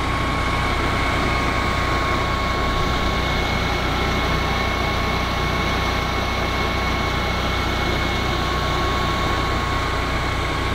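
Champion 14 kW home standby generator running steadily on natural gas inside its sound-dampening enclosure: an even, quiet hum like an air conditioner, with a faint steady whine above it. It is warming up on its self-test run.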